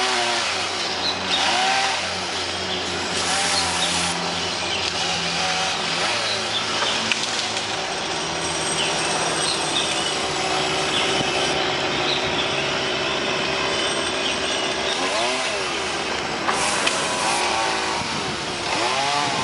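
Chainsaw engine running, its pitch rising and falling several times.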